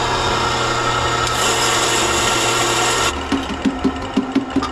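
Electric coffee grinder running with a steady whir that turns brighter about a second in, then cuts off suddenly about three seconds in. A quick run of light, even taps follows, about four or five a second.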